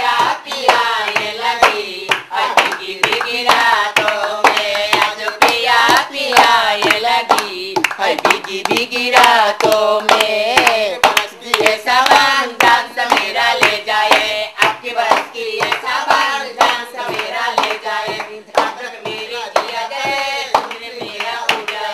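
A group singing together to steady, rhythmic hand clapping and beats on a dholak, a two-headed barrel drum.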